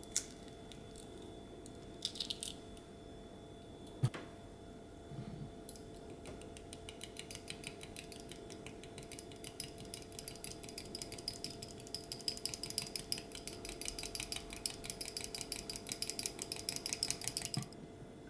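A miniature fork beating a quail egg in a small glass bowl: fast, steady clicking of the tines against the glass that starts about six seconds in, grows louder and stops shortly before the end. Before it, a brief crackle of the quail egg's shell being pulled apart and a single knock.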